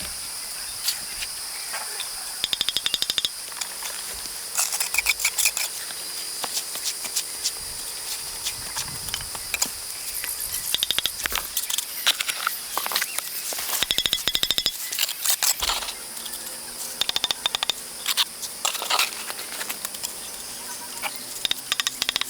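A steady, high-pitched insect drone, with irregular sharp clicks and taps throughout, including a quick rattle of clicks about two and a half seconds in.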